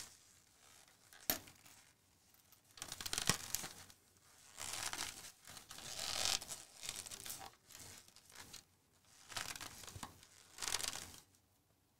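Brand-new vegetable-tanned leather billfold wallet creaking and rustling as it is flexed, folded and worked by hand right up against the microphone. There are several separate bursts, with a sharp click a little over a second in. The creak comes from leather that is still new and stiff.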